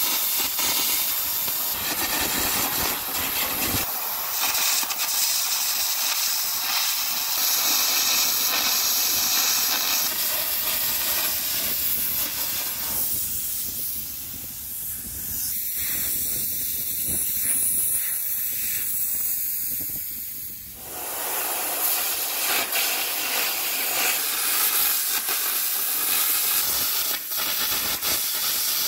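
Air carbon arc gouging of steel bucket plate: a loud, steady hiss of the compressed-air jet blowing out molten metal under the carbon arc, easing for several seconds a little before halfway through.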